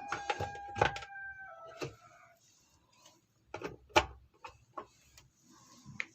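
Plastic parts of a washing machine being handled and closed back up: a series of sharp clicks and knocks, the loudest about four seconds in. A brief steady tone sounds through the first second and a half.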